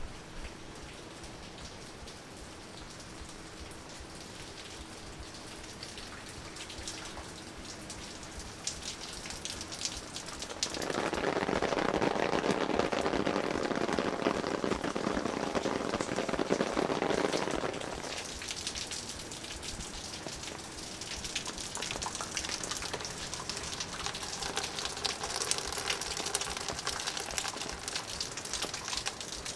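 Rain falling steadily, louder for about seven seconds midway, with close drops pattering near the end.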